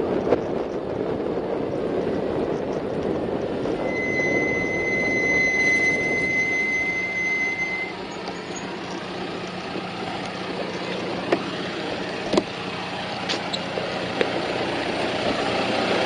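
Wind and road noise from a bicycle in motion, with a steady high squeal for about four seconds, typical of bicycle brakes as the rider slows. After that the noise drops and a John Deere utility tractor's diesel engine runs low and steady as the bike comes up behind it, with a few sharp clicks.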